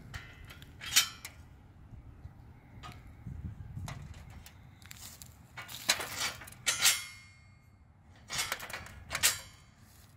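Steel crossbars clanking and rattling against the tops of square steel columns as they are set and adjusted by hand, a series of sharp metal knocks, one with a brief ring after it.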